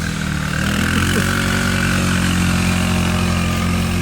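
Small gasoline engine of an off-road vehicle running steadily at high throttle, held at an even pitch.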